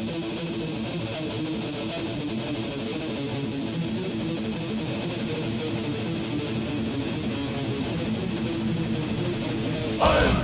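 Death metal track opening on an electric guitar playing alone at a steady level. Near the end the full band comes in with a sudden loud hit.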